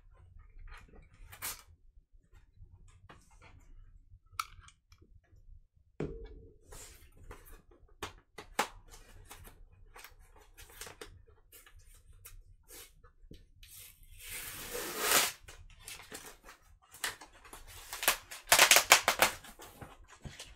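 Packaging being handled and torn open by hand: scattered small clicks and scrapes, then two longer, louder crinkling rustles in the second half.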